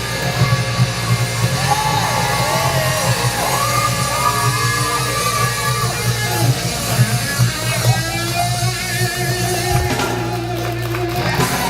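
Loud rock music with heavy electric guitar and a deep, steady low end, over which a lead melody bends and wavers in pitch.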